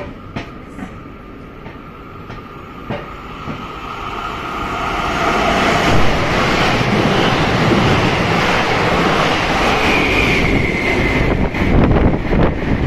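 Electric-hauled double-deck commuter train (BB 27300 locomotive with VB2N coaches) approaching along the platform and running past. The rail noise grows loud about four seconds in, with a few wheel clicks early on and a brief high wheel squeal near the end.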